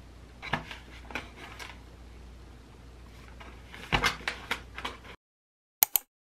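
Cardboard food cartons handled over plastic delivery bags: crinkling plastic and cardboard rustling in two bouts of crackles, the second as a box's flaps are opened. The sound then cuts to silence, broken by two quick sharp clicks near the end.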